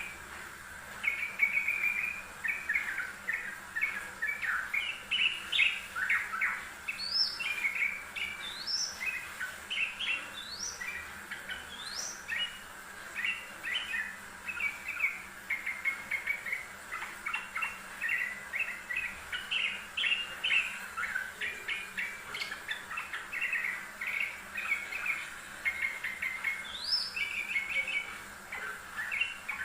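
Yellow-vented bulbul singing busily: an unbroken run of quick chirping phrases, with four sharp rising notes between about 7 and 12 seconds in and another near the end.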